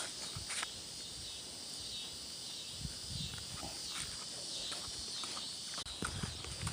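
Footsteps through outdoor vegetation, heavier around the middle and near the end, over a steady high-pitched chorus with scattered chirps, typical of insects or birds in a field.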